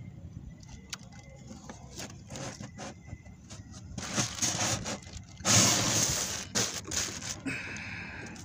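Handling noise at a fish ice box holding fish and ice: scattered clicks and scrapes, then a loud rustle of its plastic sheet cover a little over five seconds in.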